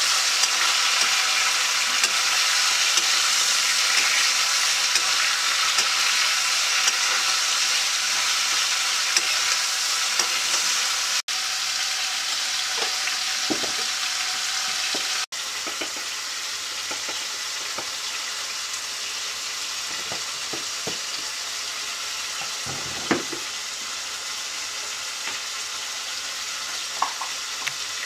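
Bitter melon slices and onion sizzling steadily as they fry in oil in a kadai on a gas stove, with the pan being stirred and a few sharp clinks of utensil on metal.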